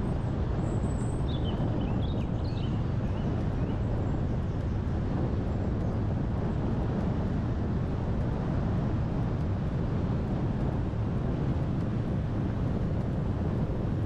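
A car driving at steady town speed, heard from inside the cabin: a constant low rumble of tyres on the road and the engine, without changes in pitch.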